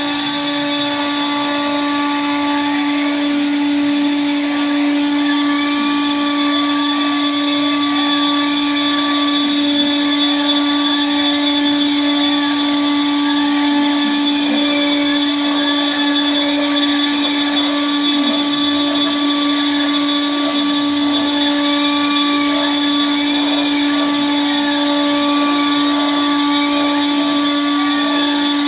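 CNC router's spindle running with a steady high whine as its bit cuts a line drawing into an MDF sheet, with fainter tones sweeping up and down as the head traces the curves.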